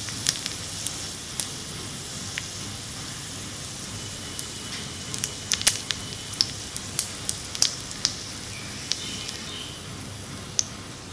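Jalebi deep-frying in hot oil in a miniature wok: a steady sizzle with frequent sharp crackles and pops, thickest about halfway through.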